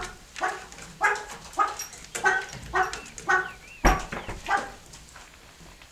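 An animal calling in a steady series of short, pitched calls, about one every half second, which stop near the end. There is a sharp knock about four seconds in.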